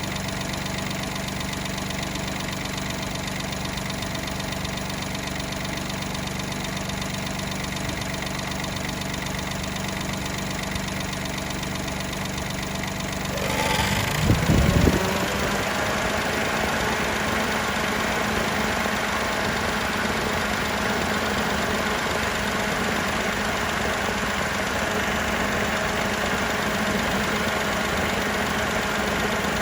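Daihatsu Mira Custom L275S's three-cylinder engine idling steadily, the car being checked for an unexplained abnormal noise that persists after a fan belt replacement. About halfway through there is a brief loud disturbance with a falling pitch, after which the engine sound runs slightly louder with more hiss.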